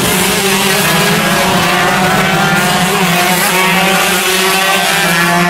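Several shifter kart engines running hard together, their pitches rising and overlapping as the karts accelerate out of a corner.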